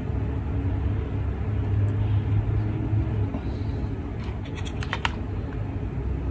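Handling noise from a gas-blowback airsoft pistol: a quick cluster of light clicks and taps about four to five seconds in, over a steady low rumble.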